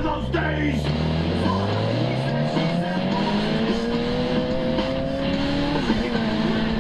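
The inline-four engine of a 2006 Suzuki GSX-R600 sport bike pulling through a gear, its pitch rising steadily for about five seconds before dropping near the end.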